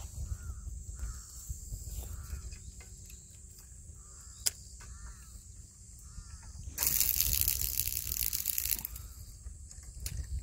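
Outdoor ambience at a reedy waterside: a low wind rumble on the microphone and a faint steady high whine, with a string of short animal calls in the first half. There is a sharp click about four and a half seconds in, and a loud hiss lasting about two seconds from around seven seconds in.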